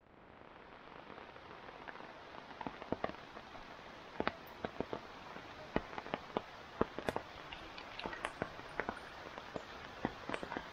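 Rain falling: a steady hiss with many irregular sharp taps of drops landing close by.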